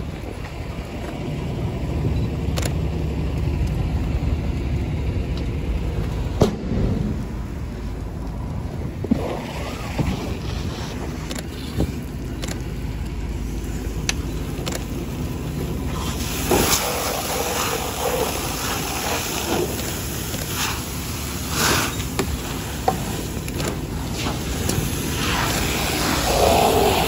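Car fire burning, with sharp pops and cracks over a steady low rumble. About two-thirds of the way in a hissing rush starts as a fire hose stream hits the burning car, throwing up steam, and the pops come thicker.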